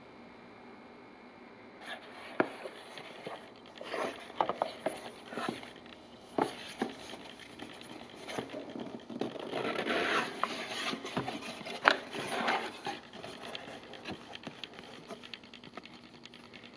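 Cardboard box handled and opened by hand: cardboard scraping and rubbing, with sharp clicks and knocks as the flaps are pulled open. It starts about two seconds in and dies down near the end.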